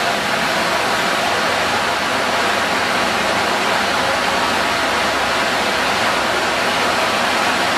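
Heavy tropical rain pouring down in a steady, dense hiss.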